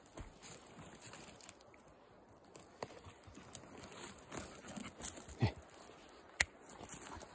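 Faint rustling and scattered crackles of dry twigs and pine-needle litter being stepped on and disturbed, with a louder knock about five seconds in and a sharp click or snap about a second later.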